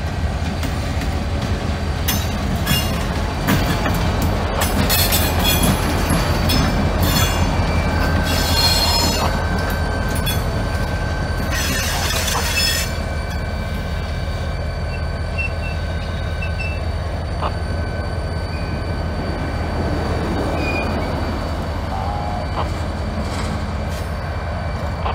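Diesel locomotives of the Central Railroad of Indiana rolling slowly past with their engines running. Steel wheels squeal in repeated high bursts through roughly the first half, then the sound settles to a steadier engine rumble.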